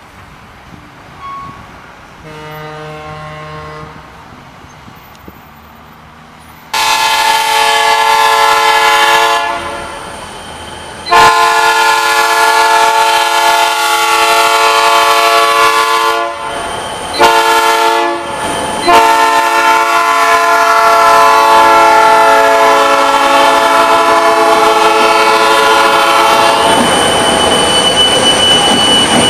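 Diesel freight locomotive's air horn sounding a faint blast, then loud blasts with a pause between them: two long, a short, and a final long one. Near the end the horn stops and the rumble of the passing train takes over, with a high steady squeal of steel wheels on the rail.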